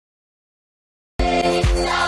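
Silence for about the first second, then music cuts in abruptly with a steady beat of about two thumps a second.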